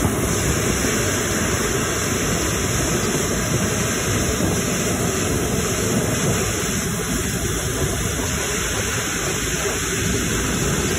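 Rolls-Royce Trent 900 turbofans of a Qantas Airbus A380 running at low taxi power as the aircraft rolls past close by, a steady rushing jet noise that holds level.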